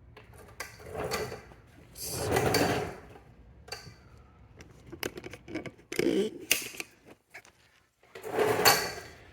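Plastic door cover sheet crinkling and rustling as it is peeled back off its sticky black adhesive, in several bursts; the loudest come about two seconds in and near the end.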